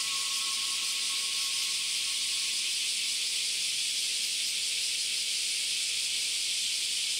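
Summer cicadas singing in a dense, unbroken chorus: a steady, high-pitched drone.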